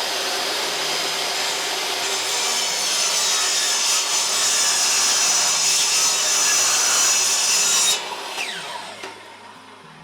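Power miter saw cutting through wood, steady and loud. About eight seconds in the cut ends and the saw is switched off, its motor and blade winding down with a falling whine.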